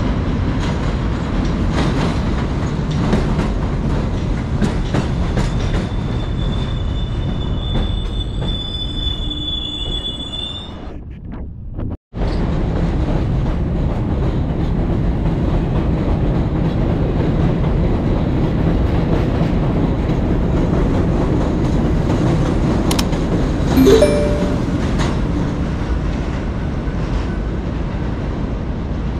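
R62A subway train on an elevated line: wheels clicking over the rail joints under a steady rumble, with a high wheel squeal for a few seconds as it comes in. The sound breaks off abruptly and resumes with the train running along the platform and away, a short tone sounding about two-thirds of the way through.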